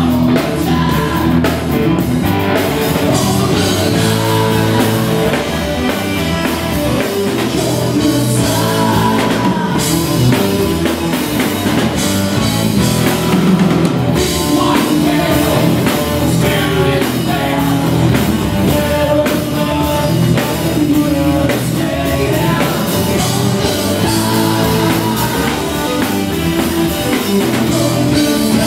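Live rock-blues band playing: distorted electric guitars, electric bass and a drum kit, with a male vocalist singing.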